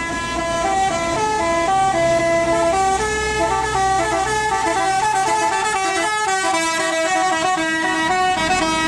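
Bus telolet musical horn playing a melody, its tones stepping quickly from note to note without pause. Under the first half, the bus's engine runs low.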